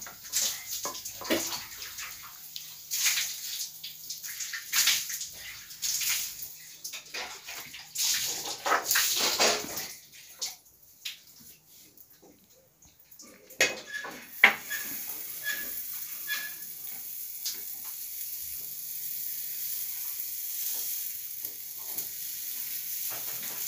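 Wooden rolling pin rolling and knocking on a rolling board, a run of irregular clacks and scrapes as a methi paratha is rolled out. After a pause and a few louder knocks about fourteen seconds in, a steady sizzling hiss from the paratha cooking on a hot griddle over a wood fire.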